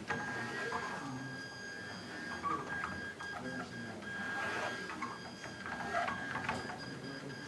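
Small autonomous hobby robot's gear motors whirring as it drives and turns on a tabletop, with small clicks and a steady high-pitched tone over faint room chatter.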